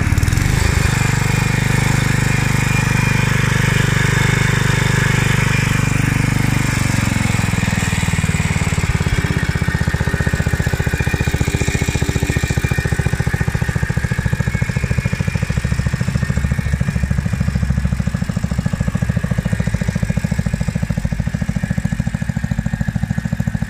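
Small Lombardini petrol engine on a walk-behind sickle-bar mower, running steadily at a raised speed. About seven seconds in it slows to a lower, more pulsing idle and stays there.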